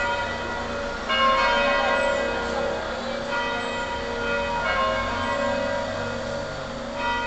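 Church bell ringing, struck four times about every one and a half to two seconds, each stroke ringing on into the next.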